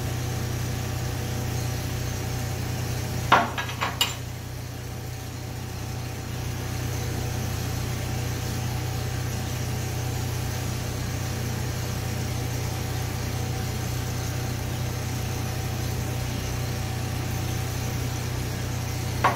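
Hobart Champion Elite engine-driven welder-generator running steadily, a constant low hum. A few sharp knocks come about three to four seconds in.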